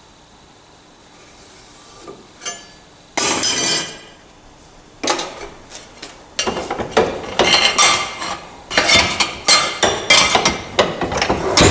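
Metal clattering and clinking: small steel parts and tools being handled and knocked together on a workshop bench. It starts a couple of seconds in and becomes a busy string of sharp, uneven knocks from about five seconds in.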